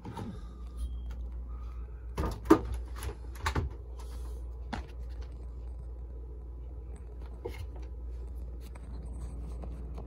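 Stainless-steel refrigerator door pulled open, with a quick cluster of knocks and clicks from the door and its fittings about two to three and a half seconds in, over a steady low hum.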